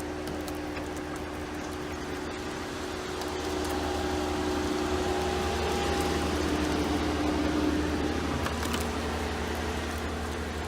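Garden hose spraying water onto a truck's body, a steady hiss that grows louder about three seconds in, over a steady low hum.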